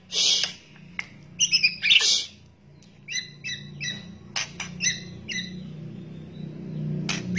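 White-rumped shama (murai batu) giving harsh crackling 'kretekan' calls, then a quick run of short ringing notes about three seconds in, with a few sharp clicks, over a faint low hum.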